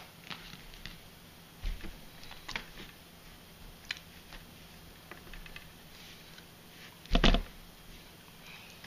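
Quadcopter arm assemblies handled and laid out on a tabletop: scattered light clicks and taps of plastic parts and wires, with a louder knock about seven seconds in as a part is set down.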